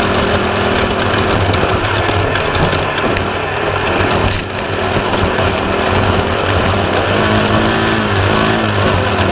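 Air-cooled VW 1600 engine of a Class 1/2-1600 desert race buggy running hard at speed, over a constant rattle from the car. The engine sound dips briefly about halfway through, and its pitch rises and falls near the end.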